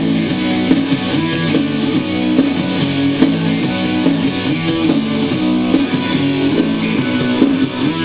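Recorded music with guitar, playing at a steady level with chords changing in rhythm.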